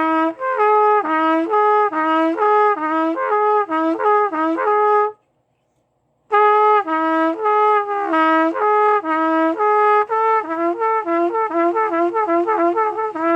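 Trumpet playing lip slurs: slurred notes rising and falling across the horn's harmonics in two phrases with a short break between them, the second getting faster toward the end. The slurs are fairly clean but still need a little work.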